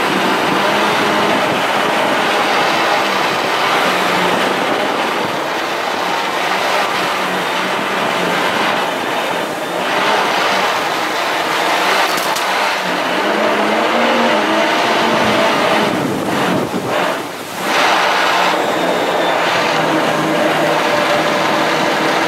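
Small jet boat's engine running at speed under way, with the hiss of water spray off the hull. The engine note briefly drops away about three-quarters of the way through, then picks back up.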